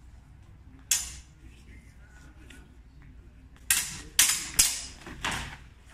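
Steel sidesword blades clashing: one sharp clash about a second in, then a quick flurry of four clashes near the end, each ringing briefly.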